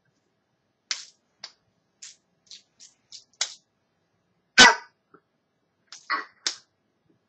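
Steel tape measure clicking and snapping as it is played with: about a dozen sharp, irregular clicks, the loudest a little past halfway.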